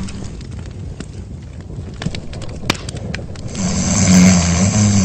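A cartoon character's loud snore: a rough, rasping breath with a low buzz in it, starting about three and a half seconds in and lasting about a second and a half.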